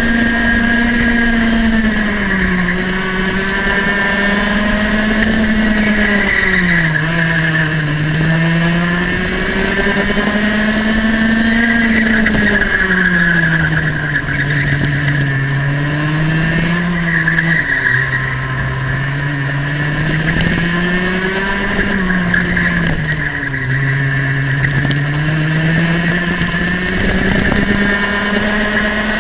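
Single-cylinder two-stroke kart engine at racing revs through a lap. Its pitch falls each time the driver brakes for a corner, about five times, and climbs again under full throttle out of it.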